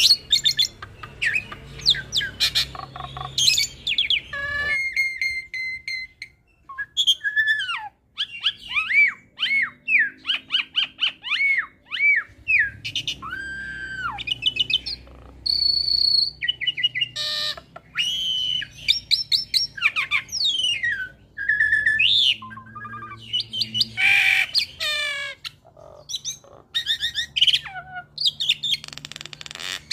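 Jalak Suren × Jalak Nias hybrid starling singing a loud, varied song of sharp chirps, a run of repeated arched whistled notes, a held high whistle and quick chattering trills, with a short lull about six seconds in.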